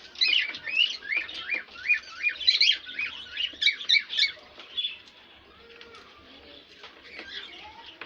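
Small birds chirping busily, a rapid string of short rising notes that thins out after about four seconds.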